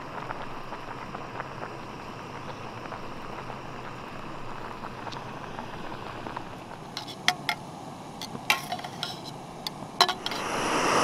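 A small saucepan of water at a rolling boil on a canister gas camp stove, with a steady bubbling hiss. In the second half, a few sharp clinks as crawfish and a utensil knock against the metal pot. Near the end a louder rushing noise builds up.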